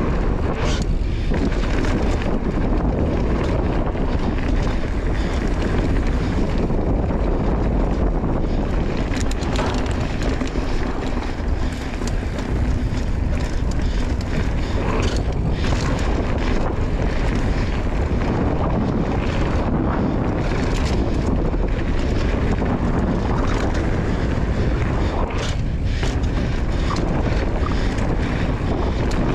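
Mountain bike riding dirt singletrack: steady wind rush over the microphone, with a few sharp clatters from the bike over bumps.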